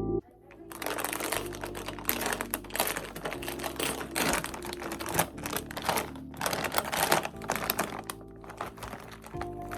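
Quick, irregular key clicks of typing on a computer keyboard, in bursts, over quiet background music. The music comes up louder near the end as the typing stops.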